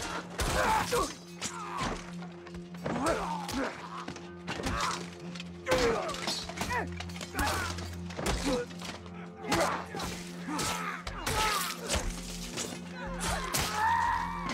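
Battle sound mix: a low, held music drone under frequent sharp clashes and thuds of swords and armour, with men shouting and crying out.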